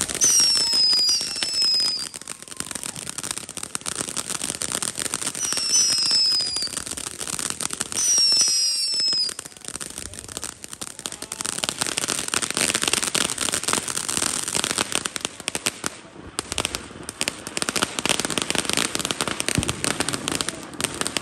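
Fireworks going off: three bursts of shrill whistles, each falling slightly in pitch, in the first nine seconds, then a long run of rapid crackling and popping.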